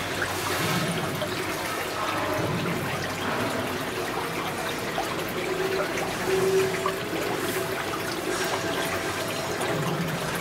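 Spring water running and trickling steadily into the pool at the foot of the rock.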